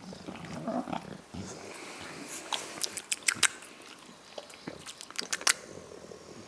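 A sleeping animal's mouth and breathing noises: a soft snuffling breath at first, then two clusters of sharp wet clicks, like lip-smacking or chewing, around the middle and again about five seconds in.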